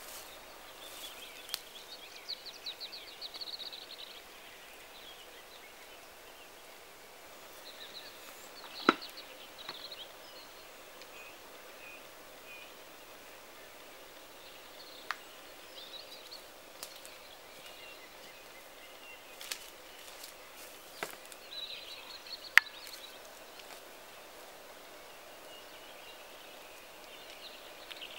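Pine-forest ambience with small birds chirping and trilling on and off, and a few sharp clicks or snaps, the loudest about nine seconds in and again about twenty-two seconds in.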